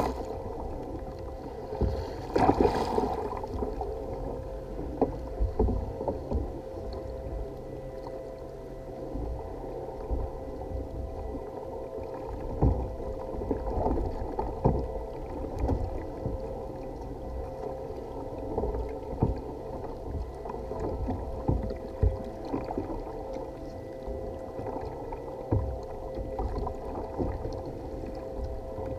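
Water sloshing and slapping against a fishing kayak's hull, muffled, with scattered knocks and thumps on the kayak. A louder splash about two to three seconds in comes from a small yellowfin tuna thrashing at the surface beside the kayak.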